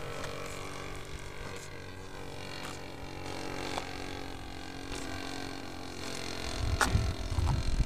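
Distant steady drone of a Hanger 9 Super Cub RC plane's Evolution 33 two-stroke gas engine as it flies overhead. Near the end there is a low rumble and a sharp click on the microphone.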